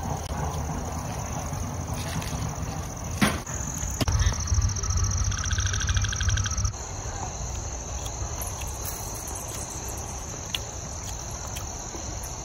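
Crickets chirring in a steady high-pitched trill, with a louder, rapidly pulsing insect call for a couple of seconds from about four seconds in. A single knock sounds a little after three seconds.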